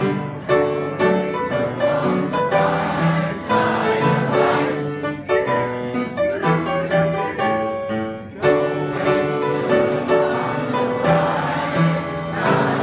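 Elderly amateur choir singing in unison with instrumental accompaniment.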